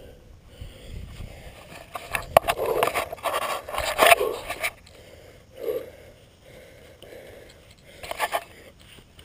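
Loose shale scraping and crunching under a hand and feet, in irregular rough bursts, loudest from about two to four and a half seconds in.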